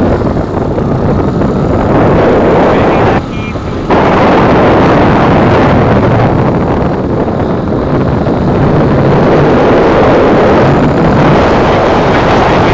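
Wind buffeting the microphone of a moving vehicle, mixed with road and engine noise: a loud, steady rush that dips briefly about three seconds in.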